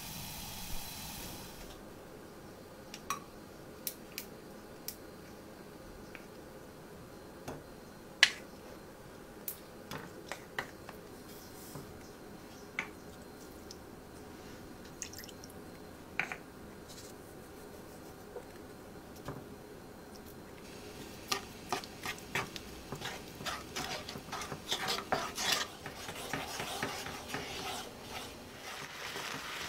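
Kitchen utensils clinking and tapping against dishes and pans in scattered, separate strikes. About two-thirds of the way through, dense crackling sets in and builds into a steady sizzle of food frying in hot oil.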